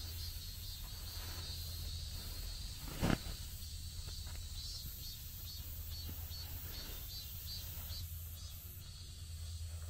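Outdoor ambience: a steady low rumble with insects chirping in faint, rhythmic pulses. A single sharp knock comes about three seconds in.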